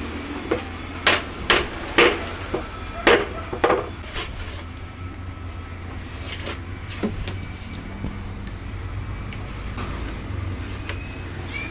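Sharp knocks on the wooden panels of a speaker box being assembled: about seven strikes in the first four seconds, then a few lighter ones around six to seven seconds in, over a steady low rumble.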